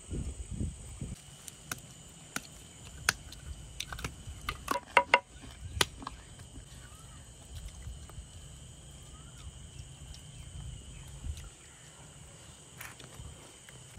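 Crickets trilling steadily in the background, with scattered sharp clinks of utensils on dishes, a quick cluster about five seconds in.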